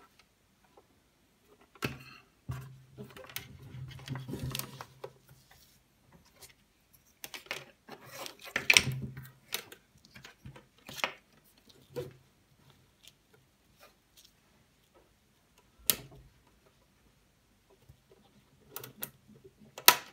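Handling noise from the plastic case of a Sonata-1 electronic doorbell as it is turned over and set down: scattered clicks, knocks and rustling of its wires, with a low hum that comes and goes among them. No chime plays.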